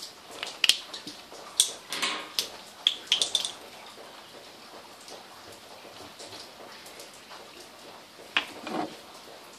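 A screwdriver tapping and scraping on the metal side bracket of a car radio head unit: a quick run of sharp clicks in the first few seconds, then another click and a short falling sound near the end.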